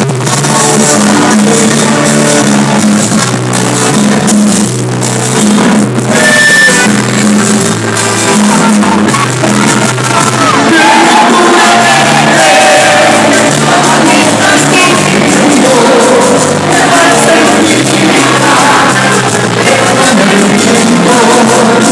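Live cumbia band playing loudly with a lead singer's vocals, and crowd voices shouting along.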